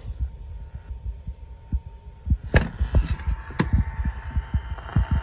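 Radio receiver static: irregular low thumping crackle with a few sharp clicks, and a faint steady tone coming in about halfway through.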